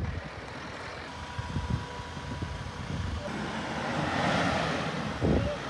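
Force Gurkha 4x4's diesel engine pulling the SUV up a soft sand slope, with wind on the microphone; the engine and sand noise build from about three seconds in as it climbs.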